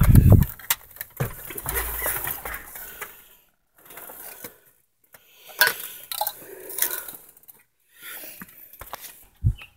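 A loud low sound cuts off in the first half second. After it come scattered clicks, knocks and rustles, with short quiet gaps: a phone being handled and moved around inside a vehicle cab, with small loose items clinking.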